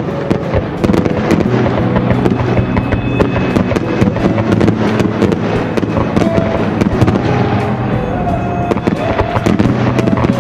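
Fireworks going off in a dense barrage, many sharp bangs a second in quick succession, with background music playing under them.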